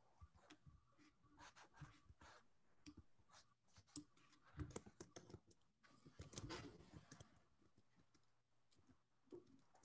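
Faint scattered clicks and scratchy rustles over quiet room tone, picked up by a video-call microphone, with a denser cluster about halfway through.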